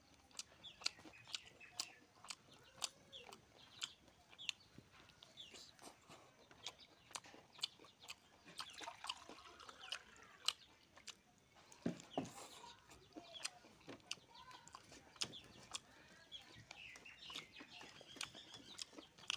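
Domestic hen clucking softly at intervals, with many small sharp clicks and smacks from someone eating rice and curry by hand off a steel plate.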